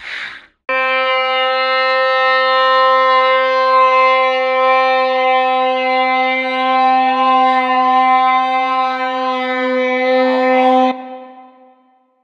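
A single long musical note held at one steady pitch, rich in overtones, lasting about ten seconds and cutting off abruptly near the end. A brief noisy burst comes just before it.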